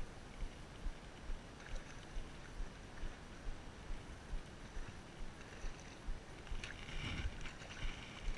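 Low muffled thumps at an even pace, about two a second, under a light hiss of wind on the microphone, with a brief rustling burst near the end.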